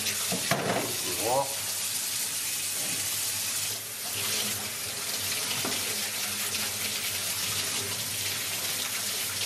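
Tap water running steadily into a stainless steel sink and splashing over a pig's ear and head meat as they are rinsed and rubbed clean by hand.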